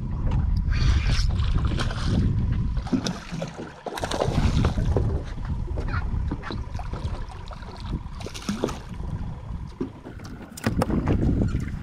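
Wind buffeting the microphone on an open boat, rising and falling, with the light clicking of a spinning reel being cranked as a fish is reeled in.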